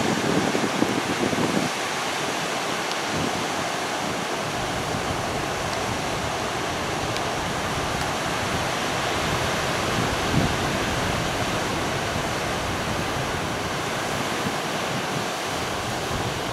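Ocean surf breaking and washing up a sandy beach: a steady rushing of whitewater. Low wind buffeting on the microphone is stronger for the first two seconds.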